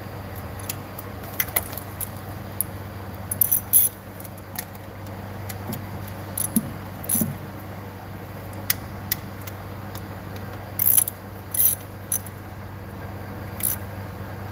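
Metal hand tools clinking and clicking at irregular intervals as they are handled at the top of a car engine during spark plug work, over a steady low hum. The loudest run of clinks comes a little under four seconds in.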